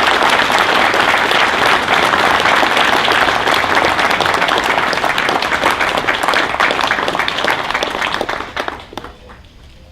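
An audience applauding after a speaker is introduced, the clapping tapering off and dying out near the end.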